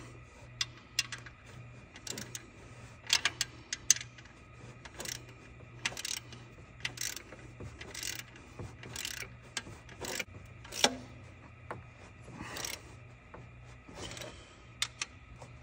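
Ratchet wrench clicking and metal tools clinking in short, irregular bursts as the new alternator's mounting bolts are snugged down, over a steady low hum.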